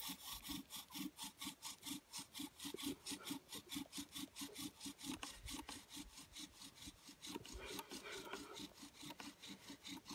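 Bow drill at work: a cottonwood spindle spun by a bow against a cottonwood fireboard, giving a rasping wood-on-wood friction sound with each back-and-forth stroke of the bow, about four to five strokes a second in a steady rhythm.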